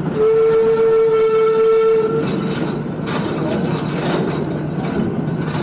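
Narrow-gauge steam locomotive whistle blowing one steady blast of about two seconds. Then the train runs on with a rumble and clicking of the wheels.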